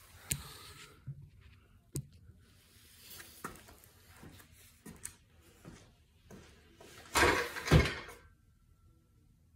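Scattered knocks and clicks of the phone being set down, then footsteps on a concrete floor. About seven seconds in comes a louder rustle and thump as a man climbs onto a plastic storage bin under a pull-up bar.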